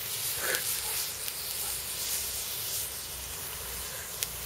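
An incendiary reaction burning down after its peak, giving a steady hiss, with a single sharp crack just after four seconds.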